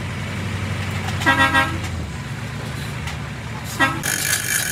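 A vehicle horn tooting: a quick triple toot about a second in, then one short toot near the end, over a steady low rumble.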